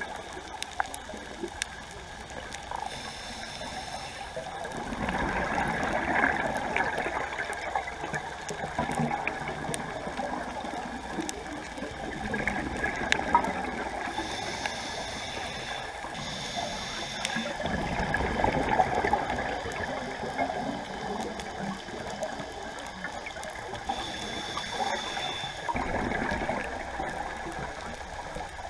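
Scuba regulator breathing heard underwater: a hissing inhale with a faint whistle, then a longer burst of bubbling exhaust, repeating about four times. A faint steady tone sits under it.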